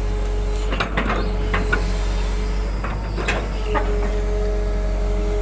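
Excavator engine running steadily with a steady whine over a low rumble, and clusters of knocks and scrapes about a second in and again around three seconds in.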